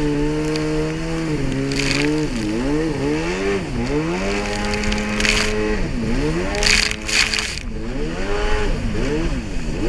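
Jet ski engine running on the water, its pitch dipping and climbing again several times as the engine speed falls and picks up. Short bursts of spray and water splash against the hull a few times.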